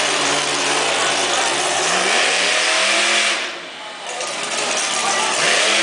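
Bounty Hunter monster truck's supercharged V8 engine revving hard under throttle as the truck drives. Its pitch climbs about two seconds in, drops briefly a little past halfway as the throttle comes off, then rises again near the end.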